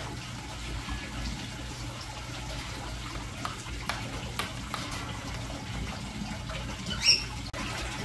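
Indoor rock fountain trickling steadily, with small splashes and flicks as an Alexandrine parakeet bathes in the falling water. There is one brief, sharper, louder sound about seven seconds in.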